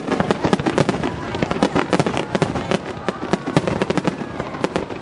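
Aerial firework shells bursting in a rapid barrage: a dense, unbroken run of sharp bangs and crackling, several a second.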